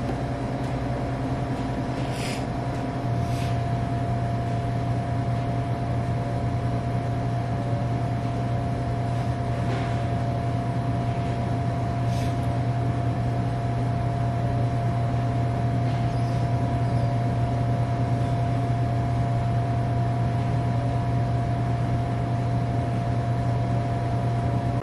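A steady low hum with a thin steady tone above it, growing a little louder about three seconds in, with a few faint crackles; it cuts off abruptly at the very end.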